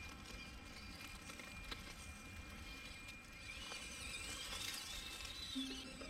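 Faint whine of an Axial SCX24 micro RC crawler's small electric motor and gears as it drives over rough ground. The whine rises about three seconds in and then wavers up and down with the throttle, over a low rumble and a few light ticks.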